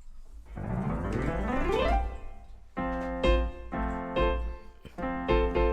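Piano keyboard played solo: a quick glissando sweeping up the keys over the first two seconds, then a series of struck chords from about three seconds in. A steady low hum runs underneath.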